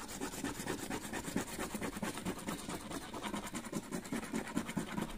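A coin scraping the silver scratch-off coating from a paper instant lottery ticket, in a quick continuous run of back-and-forth strokes.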